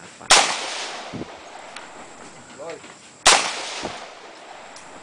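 Two rifle shots from an AR-15-style rifle, about three seconds apart, each sharp crack trailing off in a long echo.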